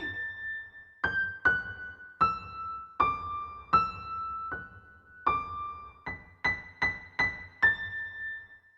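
Background music: a simple, slow melody of single electric-piano notes, one at a time, each struck and left to ring out.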